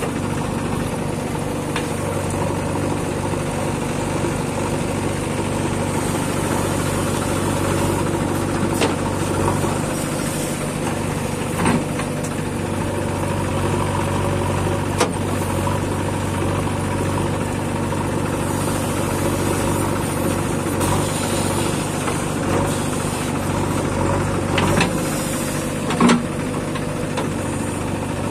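JCB 3DX backhoe loader's diesel engine running steadily as the backhoe arm digs, with several short sharp knocks from the digging.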